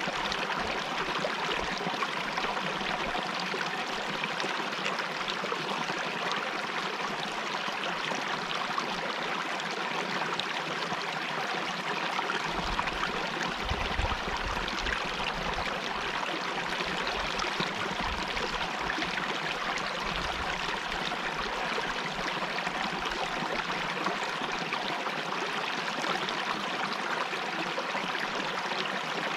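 A river stream flowing steadily, an even splashing hiss of water, with a faint low rumble coming and going near the middle.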